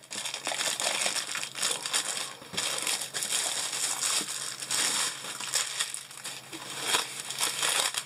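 Clear plastic wrap crinkling irregularly as a rolled diamond-painting canvas is handled, with scattered sharper crackles.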